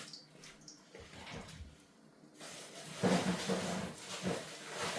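A few light kitchen knocks, then about halfway through a steady hiss of oil sizzling in a frying pan with eggs cooking in it.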